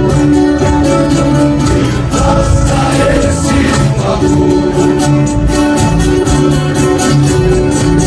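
Live música caipira: an ensemble of violas caipiras and acoustic guitars strumming together, with several voices singing.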